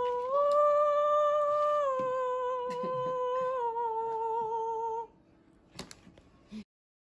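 A voice sings one long held 'ahh', starting up a step and then settling down twice over about five seconds, and stops abruptly. A couple of faint clicks follow before the sound cuts to silence.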